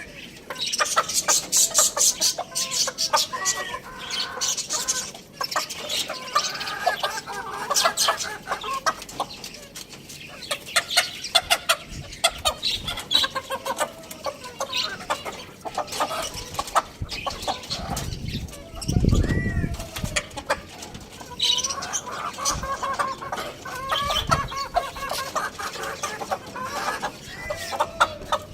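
Chickens clucking in short repeated calls, mixed with high-pitched chirps and many sharp clicks and taps. A brief low rumble comes about nineteen seconds in.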